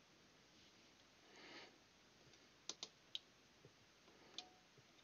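Four short, sharp clicks from a smart plug as its push button is pressed, switching the plug on and off. The first two come close together about two and a half seconds in, one follows soon after, and the last comes over a second later.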